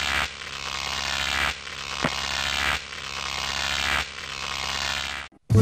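Static-like hiss over a low hum, swelling and dropping off sharply about every one and a quarter seconds, with a single click about two seconds in; it cuts off just before the music begins.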